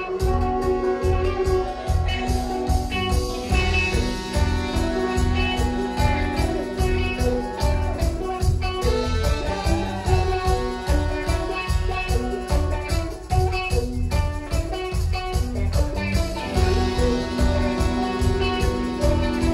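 Live reggae band playing: a saxophone melody over electric guitar, a heavy bass line and a steady drum beat.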